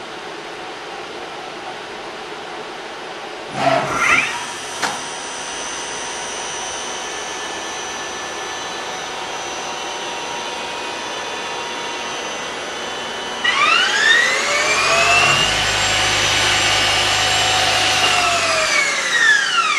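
Okuma LB-15 CNC lathe running with a steady mechanical hum. About four seconds in there is a brief whirring burst and a click. About two-thirds of the way through, a louder motor whine starts, rises and then falls in pitch over about six seconds.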